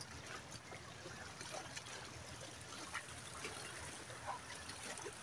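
Faint lapping and trickling of small waves on the sea surface, with a few soft ticks.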